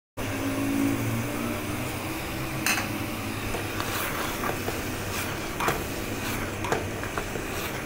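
Wooden spoon stirring and scraping minced meat frying in oil in a steel pot, with scattered knocks of the spoon against the pot over a steady hiss.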